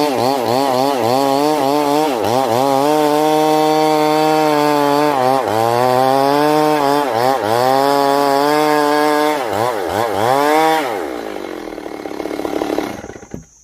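Stihl MS 382 two-stroke chainsaw running at high revs and cutting wood, its pitch dipping and recovering again and again as the chain bites. Near the end the engine winds down and falls away.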